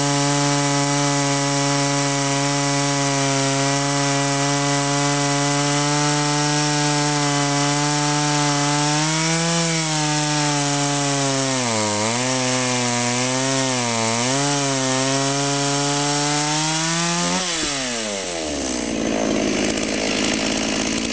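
Two-stroke chainsaw on a rail-guided chainsaw mill ripping a log lengthwise, running steadily at high revs under load and dipping in pitch a few times as it bogs in the cut. Near the end the throttle is released and the engine drops to idle.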